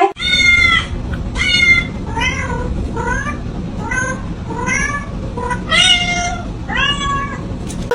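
A cat meowing over and over, about nine short rising-and-falling meows in quick succession, over a steady low background hum.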